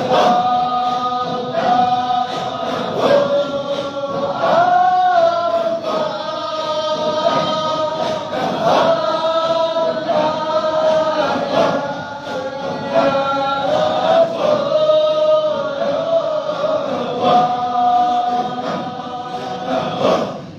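A group of men chanting together in unison, a slow melodic line held long on each note and sliding between pitches: Islamic devotional chanting at a mosque.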